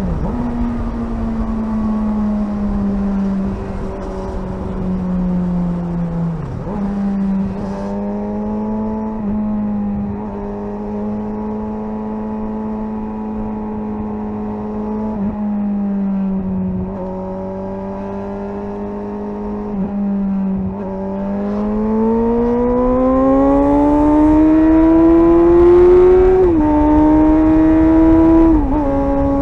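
Suzuki GSR 600's inline-four engine under way, running at a fairly steady pitch with a few quick gear changes. About two-thirds of the way in it accelerates, pitch and loudness rising steadily, then drops sharply twice near the end as it shifts up.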